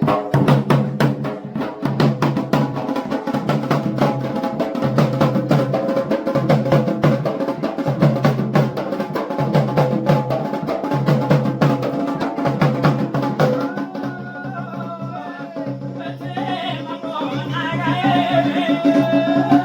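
Music of fast, dense drumming that thins out about two-thirds through, when a sung melody comes to the fore.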